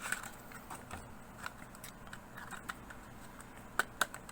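Plastic packaging of an M.2 SSD being opened by hand: scattered light clicks and crinkles, with two sharper clicks close together near the end.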